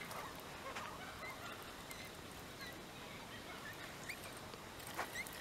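Birds calling faintly: scattered short chirps and whistles, with a sharp click about five seconds in.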